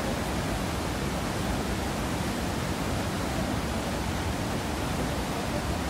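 Whitewater rapids of the Spiti River rushing, a steady, unbroken noise.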